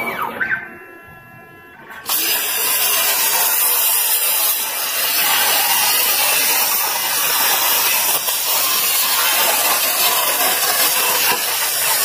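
CNC plasma cutter torch cutting steel sheet: about two seconds in, a loud, steady hiss starts suddenly as the arc fires, and it runs on without a break through the cut.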